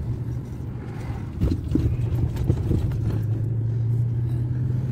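Car engine and road noise heard from inside the cabin while driving slowly, a steady low hum, with a few short knocks or rattles between about one and a half and three seconds in.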